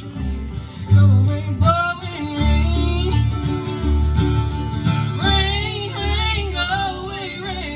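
Bluegrass band playing live: acoustic guitars, mandolin, upright bass and banjo, with singing.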